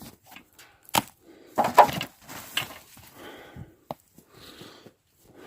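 Wood and scrap in a junk pile cracking and knocking as it is trampled: several sharp cracks spread through, with crunching in between.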